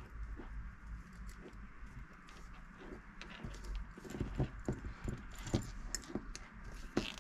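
Small metal clinks and jingles from a slow-pitch jig lure's hooks, split rings and little rattle bells being handled while a leader is tied on. The clicks are scattered at first, come thicker from about halfway, and are loudest near the end.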